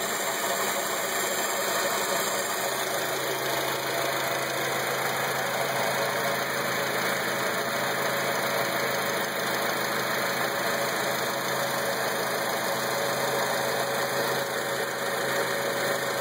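Acura TSX engine running steadily, likely at idle, with a weird noise in it that the owner cannot identify.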